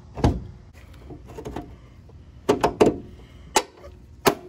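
A string of sharp knocks and clunks, three in quick succession around the middle and another near the end, as a new leaf spring and its eyelet bushing and bolt are handled and fitted to the car.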